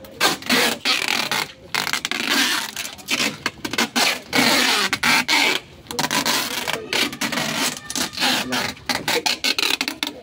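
Clear packing tape being pulled off its roll and wrapped around a cardboard box, a rasping tear in several long pulls broken by short pauses.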